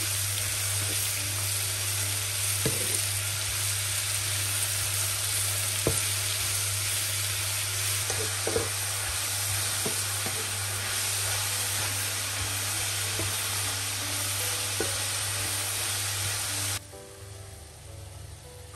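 Sliced mushrooms and peppers sizzling in a hot frying pan, stirred with a wooden spatula that clicks against the pan now and then. The sizzle cuts off abruptly near the end, leaving a much quieter background.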